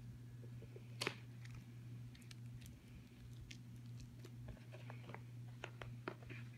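Faint hand handling of a product box being opened: scattered light clicks and taps, the sharpest about a second in and a cluster near the end, over a steady low hum.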